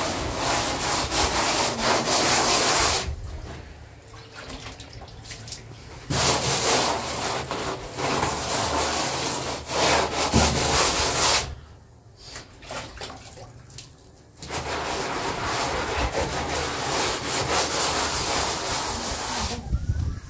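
Hand plastering trowel scraping and rubbing plaster across a wall, in three long stretches with quieter pauses about 3 s and 12 s in.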